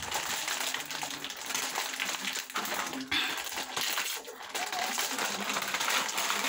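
Snack packets and wrappers crinkling and rustling as chips are handled and eaten, a dense run of small sharp crackles.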